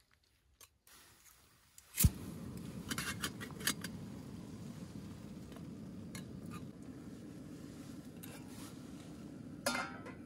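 Small camping stove on a screw-on gas canister lit with a sharp click about two seconds in, then burning steadily with a low rushing sound under a pot of water. Metal pot and lid clink a few times, most around three seconds in and near the end.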